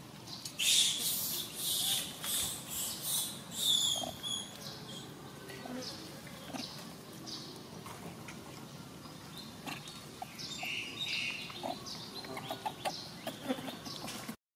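Long-tailed macaque screaming: a run of about six loud, high-pitched shrieks in the first few seconds, then fainter squeaks and calls.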